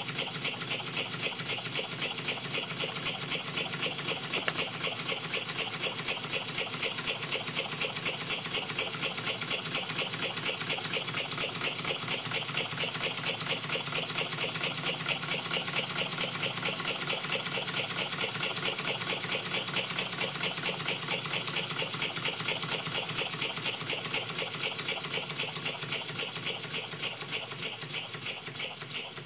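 Small double-acting oscillating-cylinder model steam engine running on compressed air: a quick, even beat of hissing exhaust puffs, several a second. The beat slows and fades near the end as the engine runs down.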